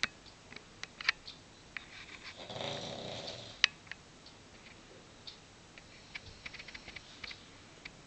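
A sleeping Cavalier King Charles spaniel snoring, one snore lasting about a second that starts about two and a half seconds in. Short sharp clicks come on and off throughout, the loudest of them about a second in and just after the snore.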